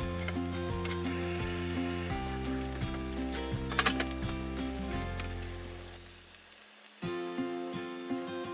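Pork-wrapped thick fried tofu rolls sizzling in a frying pan, under background music. A short sharp clatter about four seconds in.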